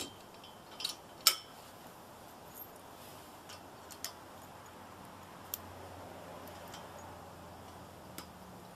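Scattered light clicks and clinks of metal hitch parts being handled at a trailer hitch receiver, the loudest a little over a second in. A faint low hum comes in about halfway through.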